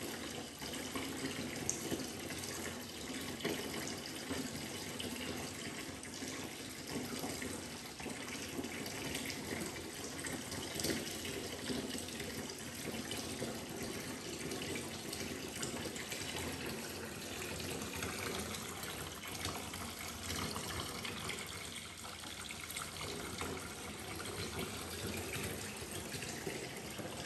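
Water running steadily from the bath tap into a filling bathtub.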